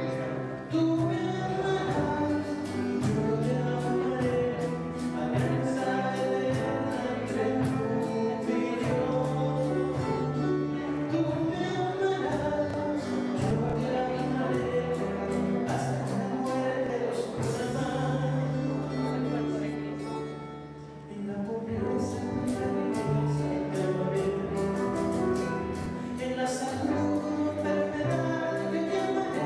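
A church hymn sung with instrumental accompaniment and a steady beat, with a brief drop in loudness about two-thirds of the way through.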